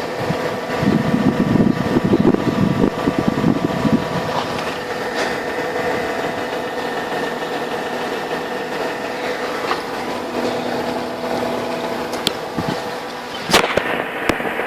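Mercedes-Benz W211's M112 V6 petrol engine running at idle with the knock that is under investigation. It gets rougher and louder for a few seconds early on, and there is a sharp click near the end.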